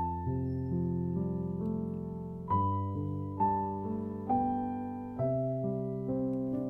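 Background music: a slow, gentle piano piece, notes struck about once a second and left to ring and fade.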